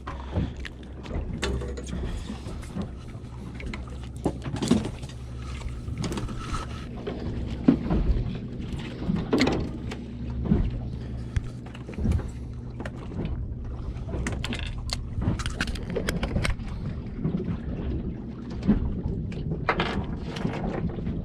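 Steady low hum of a boat motor with scattered knocks and clatters of gear being handled on board.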